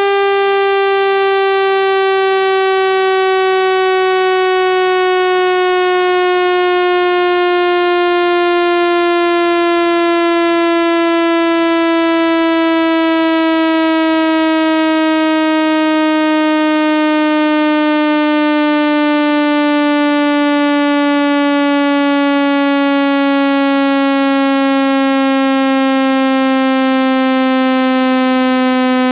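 Loud electronic buzzing tone with many overtones, its pitch gliding slowly and steadily downward: a speaker-cleaning tone meant to vibrate dust and water out of a phone speaker.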